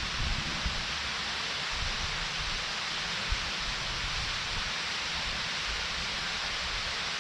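Waterfall rushing as a steady, even hiss, with an uneven low rumble underneath.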